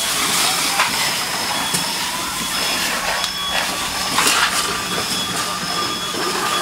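Large house fire burning: a steady rushing hiss broken by scattered sharp cracks and pops, over a low steady hum, with short high-pitched beeps recurring now and then.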